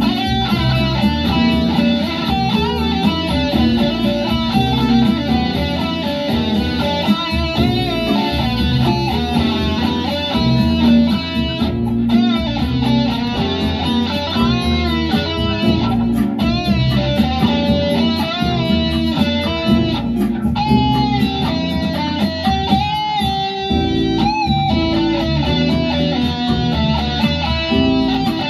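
Les Paul-style electric guitar playing a melodic lead line with bent and wavering notes, over a fuller musical backing with a steady low part.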